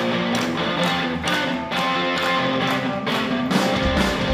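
Live rock band playing: electric guitar over a regular drum beat, with deep bass coming in near the end.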